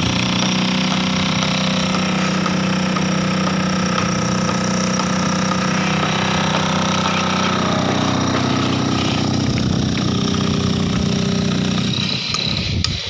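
Concrete-cutting machine running steadily at work, loud and continuous, with a brief dip in level near the end.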